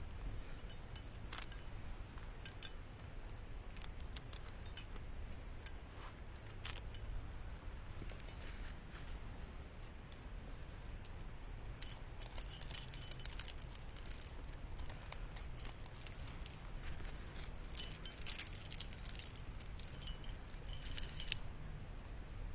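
Climbing rack of cams and carabiners on a harness jangling and clinking as gear is handled. There are scattered single clinks at first, then two busy spells of jangling about halfway through and again near the end.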